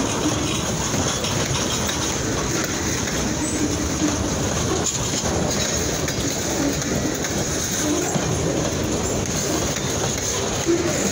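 Freight train rolling on the rails: a steady rumble and rattle of cars and wheels.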